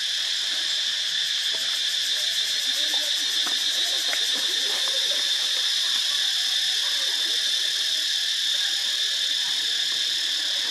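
Steady chorus of insects, a dense high buzz that holds at an even pitch and level without a break.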